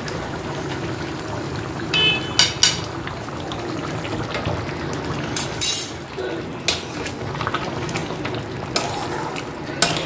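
Metal spoon stirring thick moong dal in a non-stick pan, clinking and scraping against the pan a handful of times over the steady bubbling of the simmering dal.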